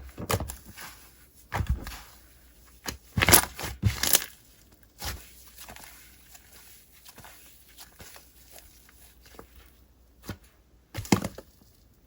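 Slime being squeezed and pressed by hand, giving bursts of crunchy, crackling clicks, loudest about three to four seconds in, then a quiet stretch before another burst near the end.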